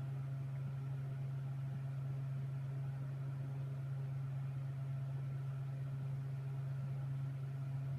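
Steady low hum with a faint hiss and no other events: background hum of a room or appliance.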